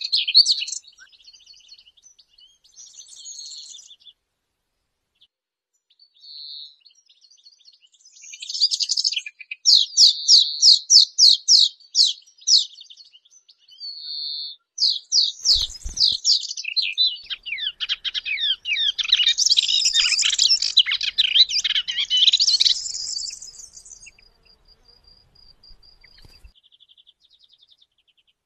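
A small warbler (kerak basi) singing a fast, varied, high-pitched song in phrases with short pauses between them. Some phrases are quick runs of repeated notes. The longest and loudest outburst comes about halfway through and lasts several seconds, and the song turns softer and thinner near the end.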